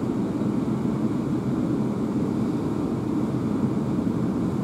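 Steady low rumble inside the carriage of a Class 350 electric multiple unit as the train moves off slowly from a station.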